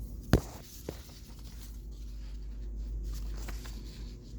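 Handling noise: a sharp tap or knock about a third of a second in, a smaller tap just under a second in, then faint rustling.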